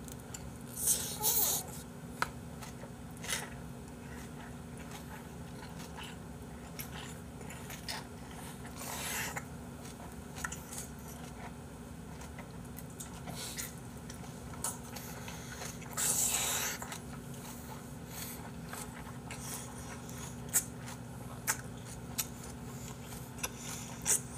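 Close-up chewing of a big mouthful of bossam wrap (pork and salted napa cabbage), mouth closed, with small clicks and three short hissing rushes of breath. A steady low hum runs underneath.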